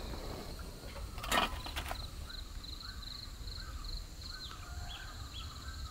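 Outdoor garden ambience: an insect chirps in short pulsed bursts two or three times a second while birds call now and then, over a steady low rumble. A short clatter stands out about a second and a half in.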